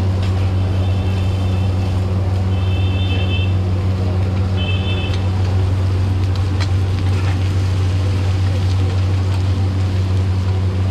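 A steady, loud, low engine-like drone, with a metal spatula clinking and scraping on a large iron griddle. Three short high beeps sound in the first half.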